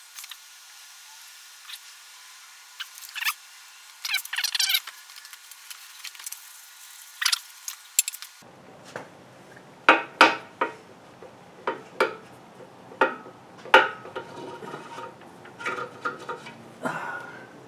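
Hand tools clinking and tapping against metal machine parts during disassembly: a string of sharp clicks and clanks, sounding thin in the first half and fuller from about halfway on.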